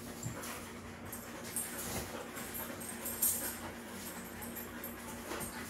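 Dogs moving about with faint dog noises, over a low steady hum, with a few short light clicks, the loudest about three seconds in.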